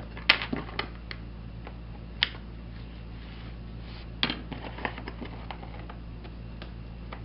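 Scattered light taps and clicks of a hand tool working the lead came of a stained glass panel while the wrinkles are smoothed out. The sharpest tap comes just after the start, with others about two and four seconds in.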